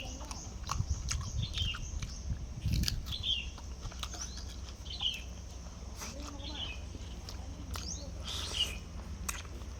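A bird chirping: short, high, falling chirps roughly once a second, with scattered sharp clicks and a steady low rumble beneath.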